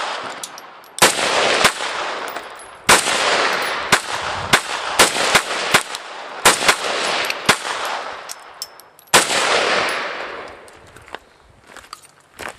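A semi-automatic rifle in .223/5.56 fired about a dozen times in quick, uneven succession, some shots barely half a second apart, each shot followed by a long echo off the surrounding hills. The last shot comes about nine seconds in, and its echo fades out.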